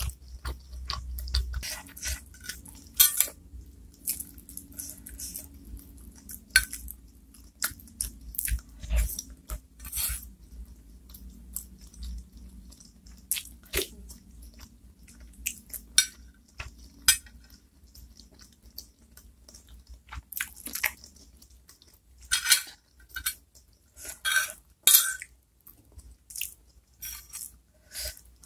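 Close-miked chewing and mouth sounds of someone eating small chicken meatballs in chili broth, with a metal spoon clinking and scraping on the plate. The sounds come as sharp, irregular clicks and snaps.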